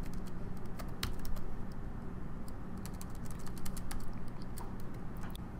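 Typing on a computer keyboard: irregular, scattered keystrokes over a low steady hum.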